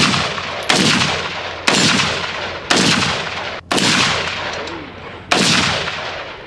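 Six shots from a 5.56 AR-15-style rifle fired semi-automatically, about one a second with a slightly longer gap before the last, each shot trailing off in a long echo.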